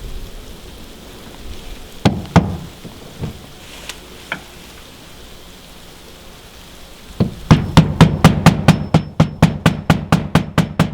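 Hammer driving nails into a trim board: a few separate knocks about two seconds in, then a fast, even run of strikes, about six a second, from about seven seconds in.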